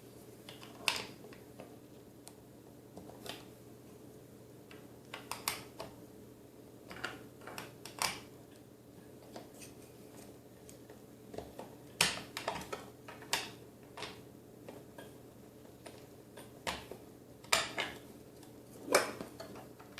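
Irregular clicks, clinks and light knocks of an LED recessed-light retrofit trim being handled and taken apart, its screws being backed out, over a faint steady hum.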